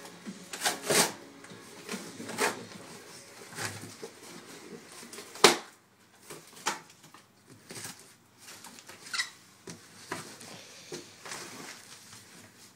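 Taped cardboard box being cut open and handled: scattered scrapes and taps, with one sharp knock about five and a half seconds in.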